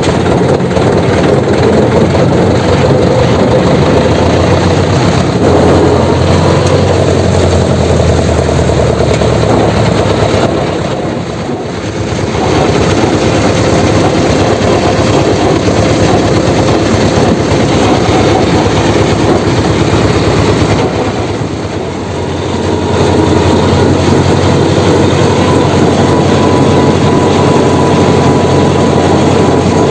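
Jessop road roller's diesel engine running loud and steady as the roller is driven, with a rattling clatter over the engine note. The level drops briefly twice, about a third and about two-thirds of the way through.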